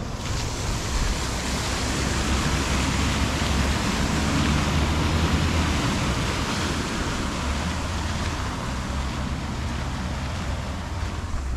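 Cars driving through a flooded road, their tyres throwing up a steady hiss of spray that swells around the middle as one passes close. A low rumble of wind on the microphone runs underneath.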